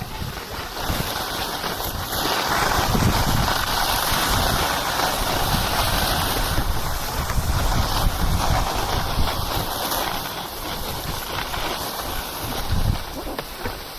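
Wind buffeting the camera microphone, a loud rushing noise that swells for several seconds in the middle.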